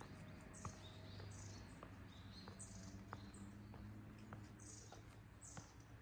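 Small birds calling with short, high chirps, some falling in pitch, over the regular steps of someone walking on a path and a faint steady low hum.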